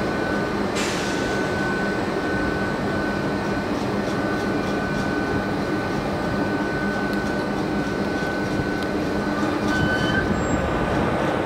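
SNCF BB 22200 electric locomotive moving slowly at low speed, with a steady rumbling hum and a high steady whine. A single sharp clank comes about a second in, and a short high squeal near the end.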